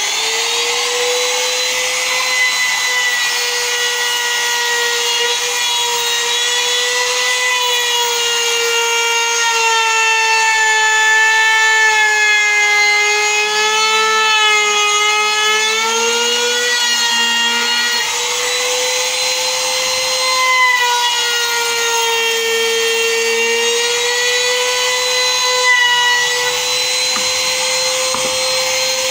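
Electric trim router running at full speed with a steady high whine while its bit cuts along the edge of a wooden board. The pitch sags slightly twice under load, then picks up again.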